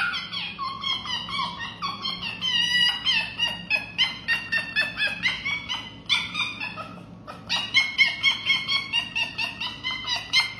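Red fox giving a long run of high-pitched whining yips, several a second, the first ones sliding up in pitch. There is a brief pause about seven seconds in.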